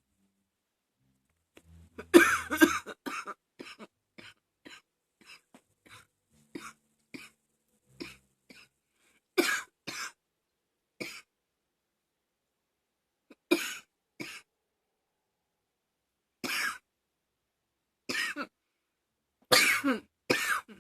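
A woman coughing: a hard fit of rapid coughs about two seconds in that trails off into weaker coughs, then separate coughs a second or more apart, some in pairs.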